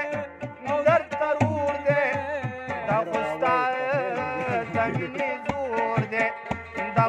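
Two men singing a Pashto ghazal together, held and wavering notes, over a steady rhythm of hand-drum strikes.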